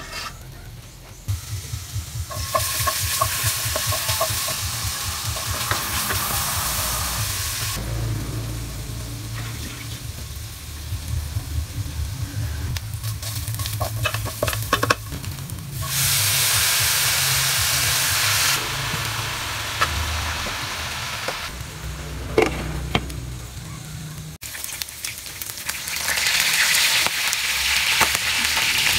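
Food sizzling in a wok in several short edited clips: chopped onion and garlic sautéing while being stirred, with a few utensil clicks and scrapes, then pork pieces frying in bubbling oil and being turned with tongs. The sizzling starts and stops abruptly at each cut.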